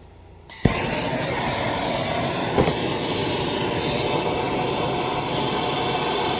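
MAP gas torch lighting with a sharp pop about half a second in, then burning with a steady hiss. A brief knock comes a couple of seconds later.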